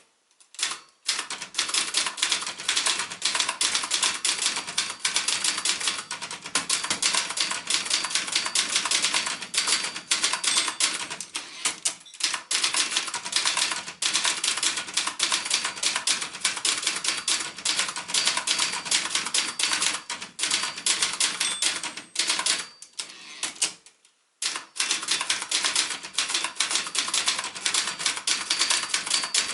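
Brother Charger 11 portable typewriter being typed on at a brisk, steady pace: a rapid run of sharp keystroke clacks. It breaks briefly about a second in and again near the middle, and stops for nearly two seconds about three-quarters of the way through before typing resumes.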